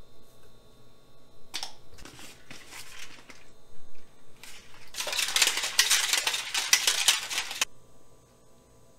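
A plastic shaker bottle shaken hard for about two and a half seconds, starting about five seconds in, mixing pre-workout powder into water. Before it come a few clicks and taps from the scoop, tub and lid.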